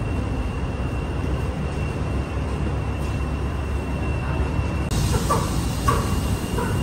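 Scania coach's diesel engine idling at a standstill, a steady low rumble.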